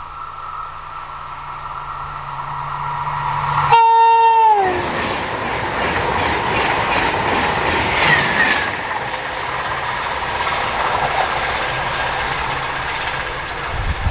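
An electric train passing at speed on a mainline. A steady whine as it approaches, then a horn blast of about a second that drops in pitch at the end as the train goes by, followed by loud rushing wheel-and-rail noise of the passing cars.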